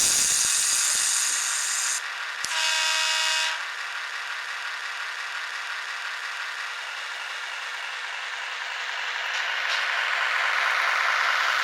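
Sound-decoder effects from an HO-scale (1/87, 12 mm gauge) KiHa 20 diesel railcar model: a loud hiss for about two seconds, then a horn blast of about a second, then the simulated diesel engine running, growing louder near the end.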